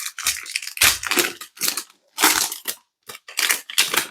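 Plastic wrapper of a trading card pack being crinkled and torn open, in a run of short crackling bursts.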